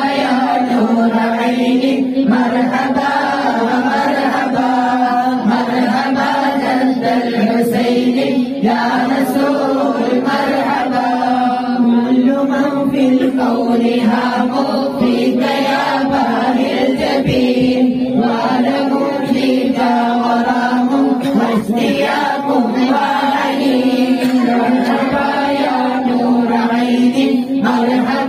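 Group of men and boys chanting Arabic mawlid verses together in a steady, continuous melodic recitation, led by one voice on a microphone, with no instruments.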